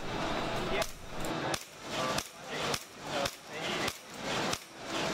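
A series of sharp clicks, about seven of them at roughly half-second intervals, over background chatter.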